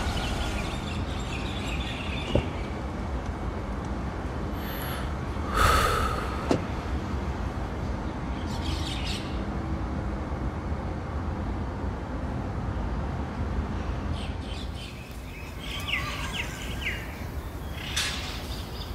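Scattered bird chirps over a steady low background rumble, with one brief louder rush of noise about six seconds in.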